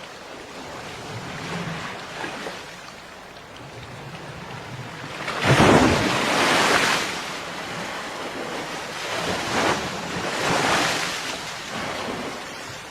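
Sea waves washing onto a beach. One big wave breaks loudly about halfway through, and smaller washes follow a few seconds later.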